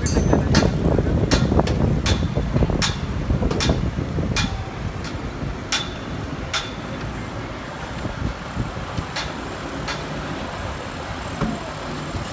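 Hammering at a construction site: sharp knocks repeating about every three quarters of a second, over a low machinery rumble that drops away about four and a half seconds in.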